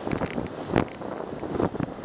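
Wind rushing over a bicycle-mounted camera's microphone as the bike rolls along a wet street in light rain, with a steady hiss and a few irregular sharp knocks.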